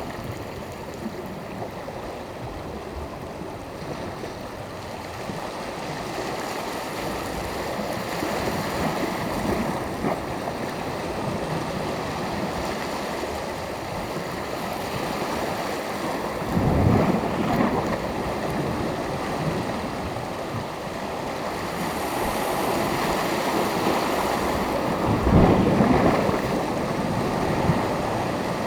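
Sea waves washing onto the shore in a continuous surf, with two louder breaking surges, one a little past halfway and one near the end.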